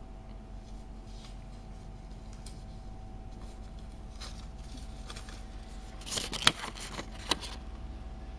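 A steady low hum, then about six seconds in a brief spell of paper rustling and handling noise with two sharp clicks, as a sheet of lined notepaper is picked up and handled.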